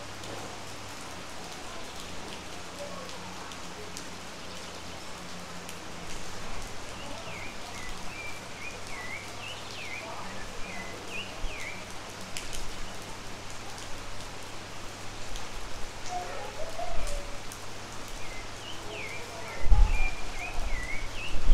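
Steady rain falling on roofs and foliage, with a bird chirping in two spells of short, quick up-and-down notes. Near the end a sudden loud low rumble breaks in over the rain.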